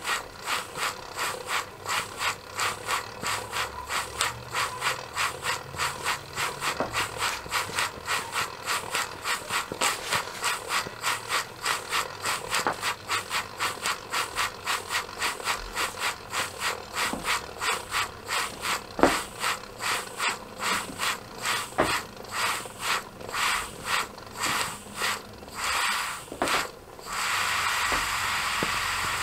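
Model steam beam engine with a brass boiler running, its valve gear and exhaust beating out about three sharp chuffs and clicks a second. About two seconds before the end the beats stop and a steady hiss of steam takes over.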